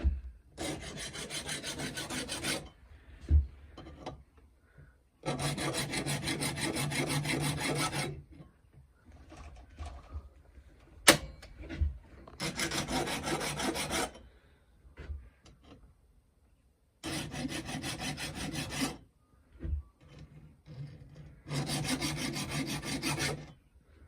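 A file rasping across chainsaw chain teeth as the chain is sharpened, in five separate runs of quick, even strokes with short pauses between them.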